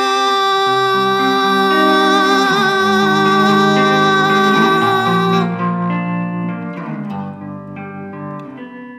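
A woman's voice holds one long sung note with vibrato over a solo electric guitar playing slow changing chords. The voice stops about five and a half seconds in, and the guitar carries on alone, growing quieter.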